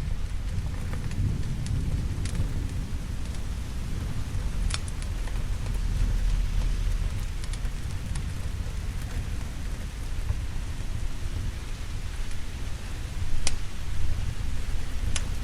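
Steady rain with a low rolling rumble of thunder that swells about halfway through. A few sharp crackling pops from a wood fire come through now and then.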